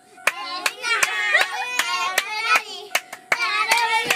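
Children singing a chant-like song while clapping their hands in rhythm, about two claps a second.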